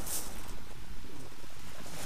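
Steady rushing background noise on a shingle beach at night, with a brief hiss just after the start and no distinct events.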